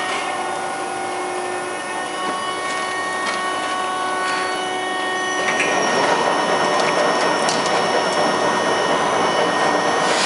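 Tezsan Doruk CNC lathe running, its spindle turning with a steady whine made of several tones and a few light clicks. About halfway through a louder hiss comes in over it.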